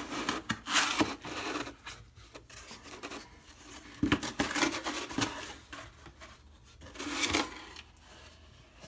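Cardboard pet carrier being handled and its top flaps pulled open: cardboard scraping and rubbing in several bursts, with the loudest near the start, about four seconds in and about seven seconds in.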